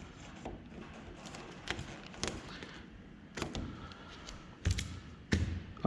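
A handful of light, sharp knocks and taps, about five spread across a few seconds, from hands and tools working vinyl wrap on a car body panel during trimming.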